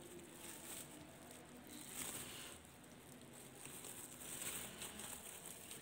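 Faint rustling and crinkling of a plastic bubble-wrap sheet being handled and turned over, a little louder about two seconds in and again near the end.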